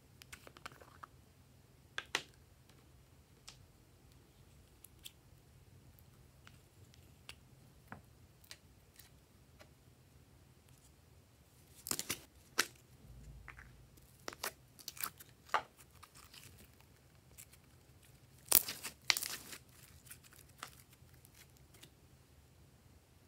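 Small plastic toys handled over trays of slime: scattered clicks and crinkly plastic crackles, with louder crackling clusters about twelve seconds in and again about seven seconds later, over a faint low hum.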